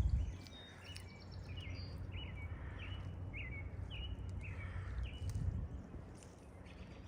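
A bird calling repeatedly, short chirping notes about twice a second, over a low steady rumble of wind and outdoor noise.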